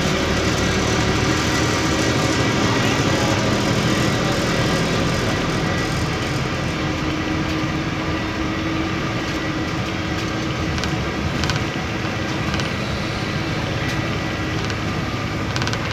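Steady road and engine noise of a vehicle driving along a highway, heard from on board.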